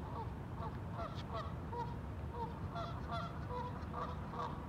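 Birds calling: many short calls, several a second, over a low steady rumble.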